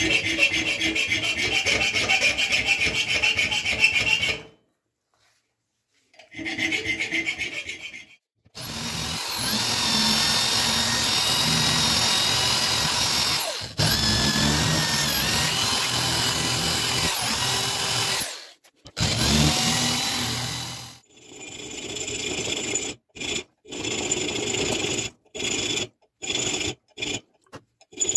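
A hand file rasping in rhythmic strokes across a spring-steel knife blade clamped in a vise. For about ten seconds in the middle, a small handheld power tool runs against the steel with a steady high whine that dips as it bites. Short, broken filing strokes follow near the end.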